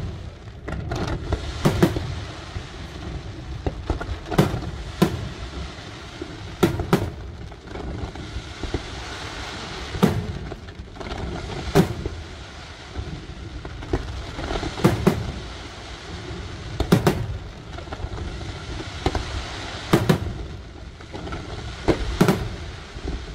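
Professional aerial fireworks display: shells bursting in sharp bangs every second or two, some in close pairs, over a continuous low rumble from the ongoing launches.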